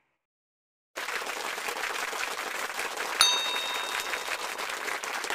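Silence for about a second, then steady applause from an end-card sound effect, with a short bright chime about three seconds in.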